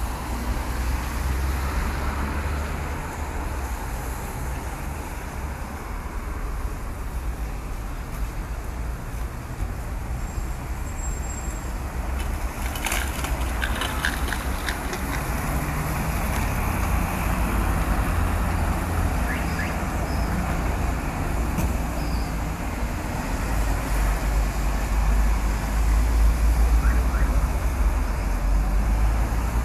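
Street traffic on a wet road: cars passing, with tyre hiss on the wet asphalt. A heavy low rumble underneath grows stronger near the end.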